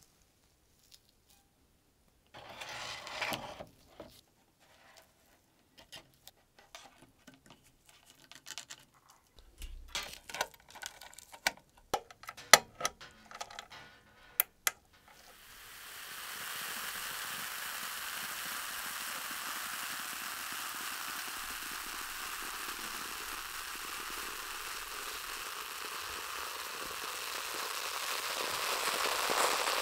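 Scattered sharp clicks and knocks of hard objects being handled, then from about halfway a steady hiss that grows louder near the end.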